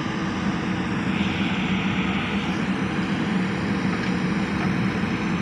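Diesel engines of a JCB backhoe loader and a tractor running steadily at close range, a continuous low drone.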